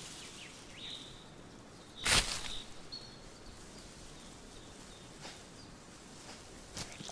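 Quiet outdoor nature ambience: a faint steady background with a few short, high bird-like chirps. A sharp crack about two seconds in, and a smaller one near the end.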